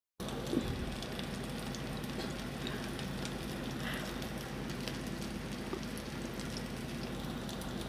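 Oil sizzling steadily around breaded vegetable cutlets shallow-frying in a pan, with scattered small pops.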